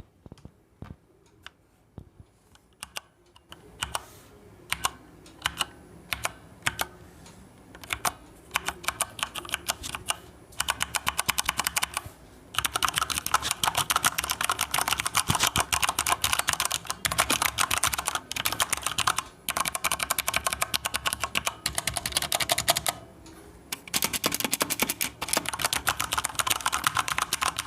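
Corsair K70 LUX RGB mechanical keyboard with brown switches being pressed: single key clicks about every half second at first, then quickening into long runs of rapid typing with a short pause or two.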